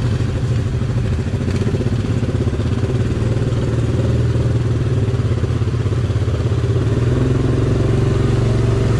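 ATV engine running steadily at low speed, heard from on the machine, getting a little louder about halfway through.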